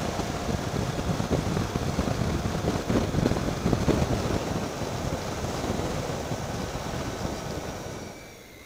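Wind rushing over the helmet or handlebar microphone of a Triumph Tiger 800 XCx motorcycle at highway speed, with road and engine noise beneath. It quietens near the end as the bike slows.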